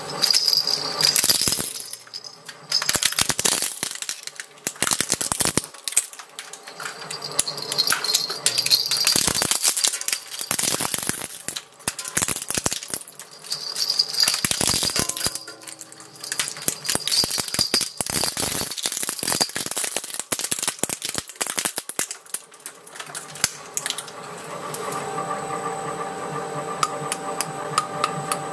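Industrial twin-shaft shredder's steel cutters crunching plastic toy rattles: dense runs of cracking and snapping plastic mixed with the rattle beads jingling, in several bursts. Near the end the crunching stops and the empty shredder runs on with a steady mechanical hum.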